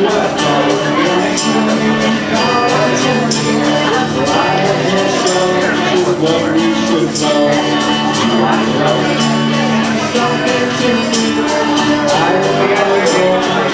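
Acoustic rock band playing live, unplugged: sustained chords and melody over a steady beat of light, regular percussion hits.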